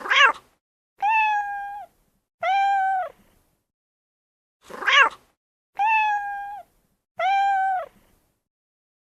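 Domestic cat meowing: six meows in two identical groups of three, each group a short sharp meow followed by two longer, drawn-out ones.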